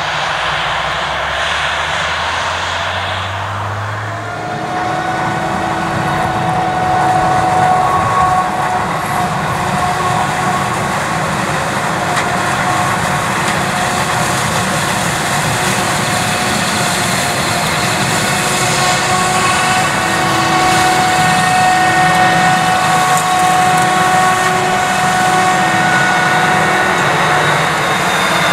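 Claas Jaguar 980 forage harvester running under load while chopping maize: a loud, steady machine noise with a high whine on top. In the first few seconds a low hum rises in pitch.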